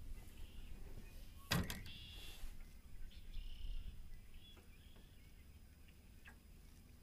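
A single sharp thunk about a second and a half in, over wind rumbling on the microphone that eases off after about four seconds; a few short, high chirps come between.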